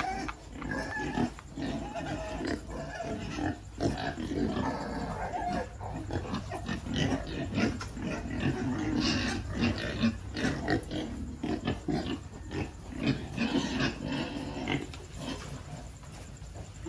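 A group of two-month-old pigs grunting and jostling as they feed together at a trough, with irregular snuffling and chomping.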